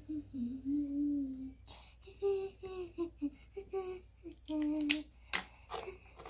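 A young girl humming a tune without words, in short held notes, one longer note near the start. Two sharp clicks near the end.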